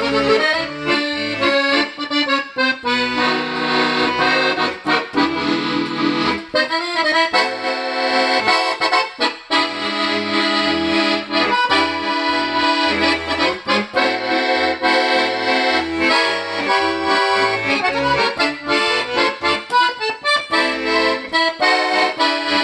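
Italian Vercelli bayan (button accordion) being played, freshly repaired and tuned: sustained chords and a moving melody over bass notes.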